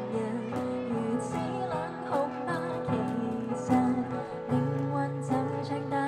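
A woman singing a slow Cantopop ballad live into a microphone, accompanied by a strummed acoustic guitar.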